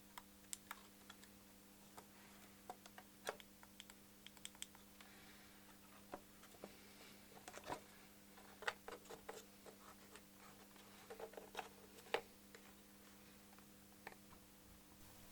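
Faint, scattered clicks and taps of small hand work on the transmitter's plastic case and parts, over a low steady electrical hum.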